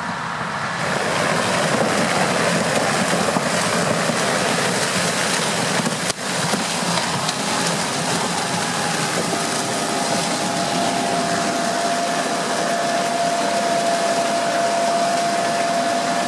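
Case Axial Flow 5130 combine harvester running steadily, an even mechanical din with a brief break about six seconds in and a steady whine joining a little past halfway.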